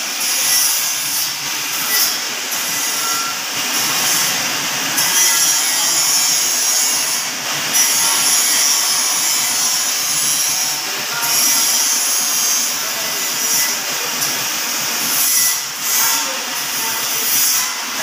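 Metal lathe running in a workshop: a steady, high-pitched machine noise with a few brief dips.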